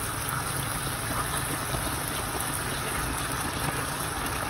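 Chicken pieces sizzling in sauce in a frying pan, a steady even hiss over a low hum.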